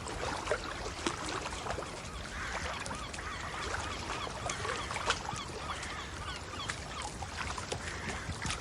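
Seagulls calling over and over, short arched cries overlapping one another, over a steady wash of water.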